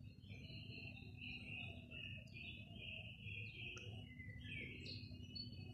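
Faint songbirds singing in woodland: a continuous run of varied high chirps and short gliding notes, over a low steady rumble.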